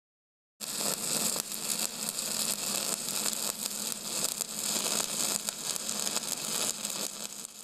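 A steady crackling hiss that starts abruptly about half a second in, thick with rapid crackles, and begins to fade near the end.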